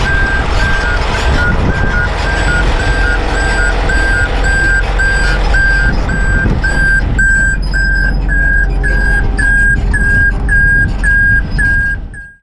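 A backup alarm beeps steadily, about three beeps every two seconds, over the loud rumble of a heavy diesel engine. All of it cuts off suddenly near the end.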